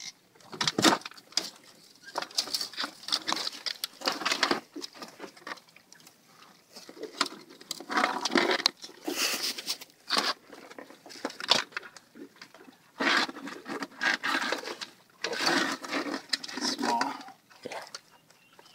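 Live Dungeness crabs clattering and scraping in a wire-and-netting crab trap as gloved hands dig through them: irregular bursts of shell-and-leg clicks against the mesh and each other, with short quieter gaps.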